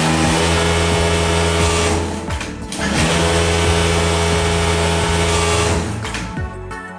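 Servo-driven electronic lockstitch industrial sewing machine (VMA V-8000S) stitching at high speed with a steady hum. It runs for about two seconds, stops briefly with a few clicks, then runs again for about three seconds and stops near the end, over background music.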